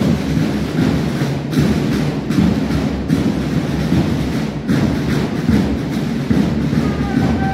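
Sound of a cadet march-past: a dense low rumble with a regular beat roughly every three-quarters of a second.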